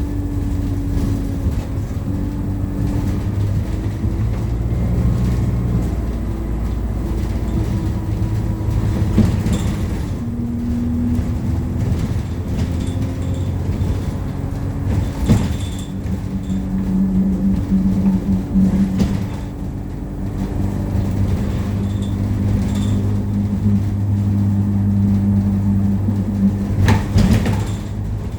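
ADL Enviro200 single-deck bus heard from inside the saloon while driving: a steady engine and road drone whose pitch steps up and down several times as the bus changes gear and speed. Interior rattles run under it, with a sharp knock about halfway through and a cluster of knocks near the end.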